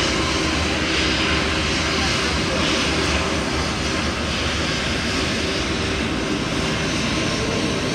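Airliner engines running with a steady, even noise and a low hum, without sharp changes.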